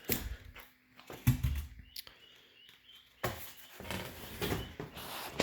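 Scattered knocks and rustles of cardboard packaging and parts being handled, with the loudest knock about a second in.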